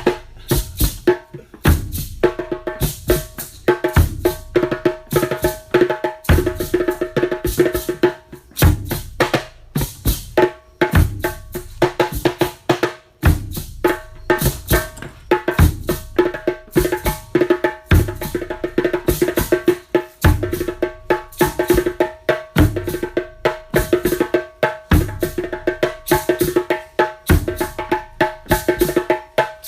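Nyabinghi drumming: a deep bass drum struck about every two seconds under quick, dense hand-drum strokes. A steady held tone sounds above the drums from about two seconds in.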